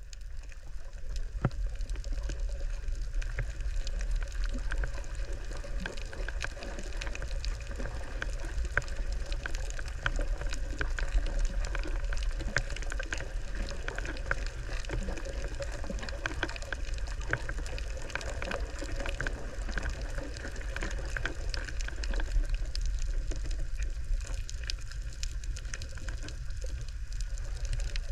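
Underwater sound at a coral reef picked up by a GoPro below the surface: a steady low rumble of moving water with a constant scatter of tiny crackling clicks.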